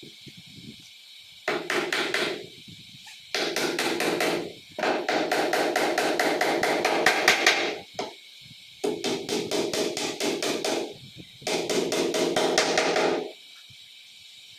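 Claw hammer tapping small nails into the edge of a board table top in quick runs of light strikes, about eight a second. There are five runs, with short pauses between them.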